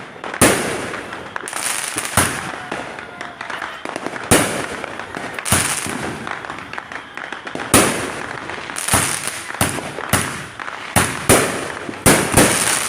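Fireworks going off: a dozen or so sharp bangs at uneven intervals, with crackling between them and a quicker run of several bangs near the end.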